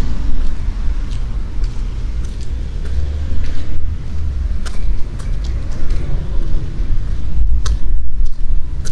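Outdoor street ambience dominated by a steady low rumble, with scattered light clicks and ticks over it.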